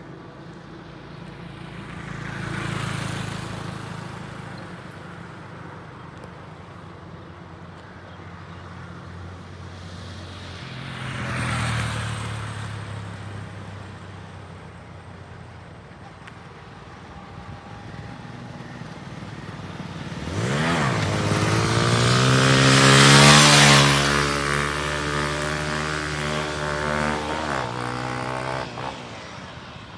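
Bajaj Pulsar 220 motorcycle's single-cylinder engine with road noise: two vehicle passes swell and fade early on, then about two-thirds of the way in the engine revs up sharply and runs hard for several seconds. It is loudest just after the rev and drops off suddenly near the end.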